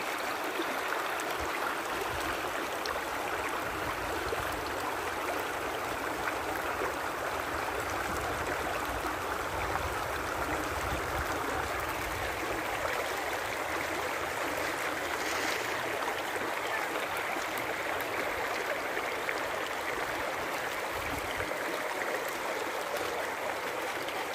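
Shallow stream flowing over stones and pebbles: a steady rush of running water.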